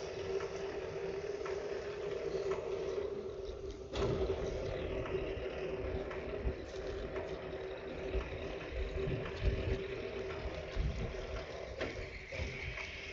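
A motor running steadily with a constant hum, with scattered low thumps and a sharp knock about four seconds in and another near the end.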